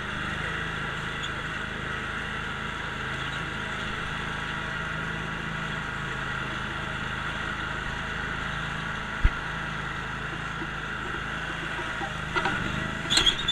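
Bad Boy ZT Pro zero-turn mower's 27 hp Kohler engine running at a steady speed, with a single sharp click about nine seconds in.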